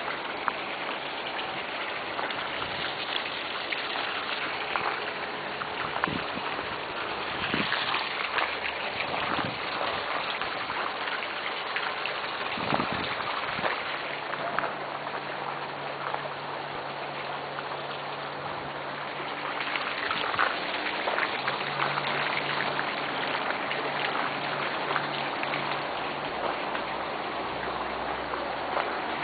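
Steady splashing and trickling of running water, with many small drips and ticks. A low steady hum joins about halfway through and comes back later.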